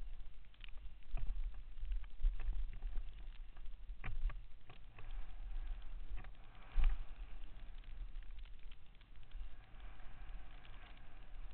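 Downhill mountain bike descending a bumpy dirt trail: wind buffets the microphone with a steady low rumble, while the bike gives off frequent rattles, clicks and knocks over the bumps. One heavier knock comes a little past halfway.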